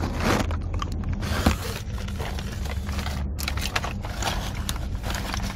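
Close crackly rustling handling noise, coming as about five short rustles, over the steady low rumble of a moving car's cabin.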